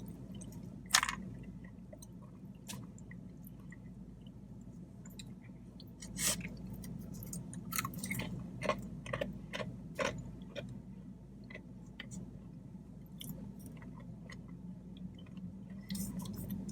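A person chewing food close to the microphone, with scattered sharp clicks: the loudest about a second in, a cluster between about six and ten seconds. A low steady hum runs underneath.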